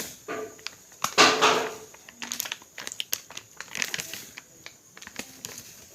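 Rustling and crinkling with scattered clicks and knocks as atta flour is handled and taken out for roti dough, with a louder rush of noise about a second in.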